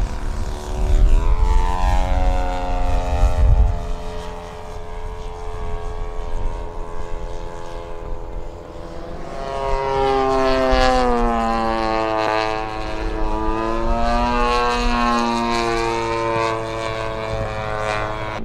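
Radio-controlled scale propeller model airplane flying past, its engine droning. The pitch drops as it goes by about a second in, and in the louder second half it swings down and up again as the plane passes overhead.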